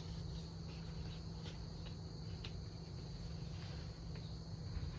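Steady high-pitched drone of insects chirring outdoors, over a low steady rumble.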